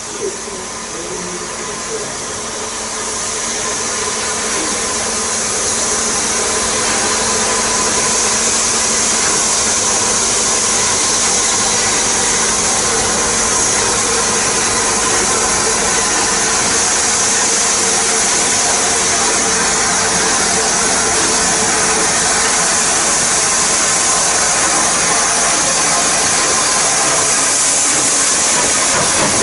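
Merchant Navy class steam locomotive 35028 'Clan Line' moving off slowly, its cylinder drain cocks open and letting out a loud, steady hiss of steam. The sound grows louder over the first several seconds as the engine draws nearer, then holds steady.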